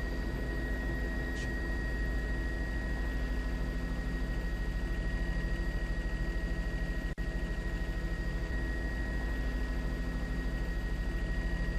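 Helicopter cabin noise: a fast, even low rotor beat under a steady mechanical whine, with a brief dropout about seven seconds in.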